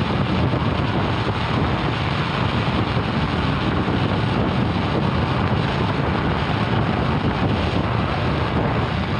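Steady rush of wind over the microphone together with the hiss of the Arcimoto FUV's tyre spraying water off a rain-soaked road while driving.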